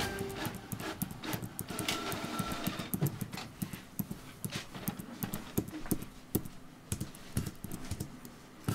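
Computer keyboard keys clicking rapidly and irregularly, a quick run of key presses with several taps a second.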